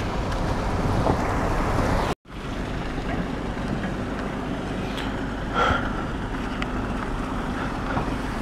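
Steady road and wind noise of a car driving over a rough track, cutting off abruptly about two seconds in; then a Toyota Innova's engine and tyres crunching slowly over a rocky dirt track, with wind.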